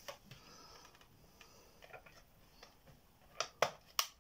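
Plastic case of a Sky modem/router being pried apart: faint ticks and scrapes, then three sharp plastic clicks close together near the end.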